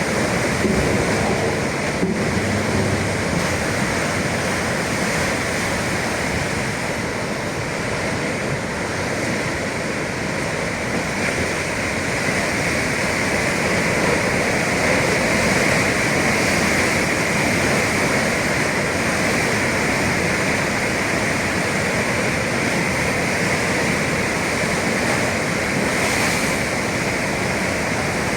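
Atlantic sea waves breaking, a steady rush of surf with slow, gentle rises and falls in loudness.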